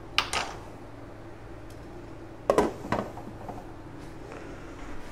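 Cookware clinks: two light clicks near the start, then a louder clatter about two and a half seconds in, as a glass lid with a knob is set on a metal cooking pot. A steady low hum runs underneath.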